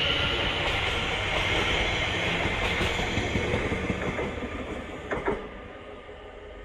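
Greater Anglia Class 720 electric multiple unit pulling away: steady rumble of wheels on rails with a high whine, fading as the train moves off. A pair of sharp clicks a little after five seconds in.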